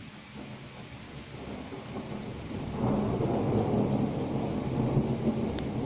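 Thunder rumbling low, swelling about three seconds in and still going at the end.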